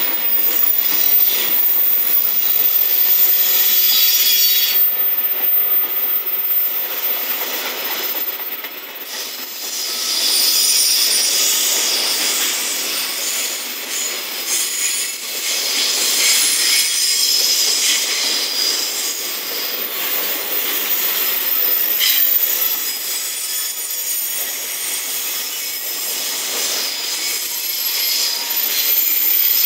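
Container wagons of a long freight train rolling past on a curve, their wheels squealing with a high-pitched, wavering squeal against the rails over a steady rolling rumble.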